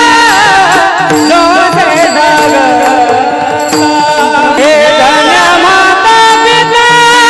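Solo male voice singing Marathi kirtan, sliding and ornamenting its notes, over steady held accompaniment notes.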